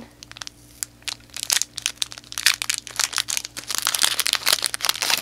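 Thin clear plastic sleeve crinkling and crackling as it is worked open by hand to free a metal dog tag. The crackles are sparse at first and come thick and fast from about a second and a half in.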